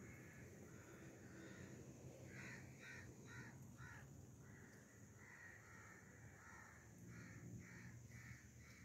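Faint bird calls: two runs of about five quick calls, one starting about two and a half seconds in and another about seven seconds in, with fainter calls between.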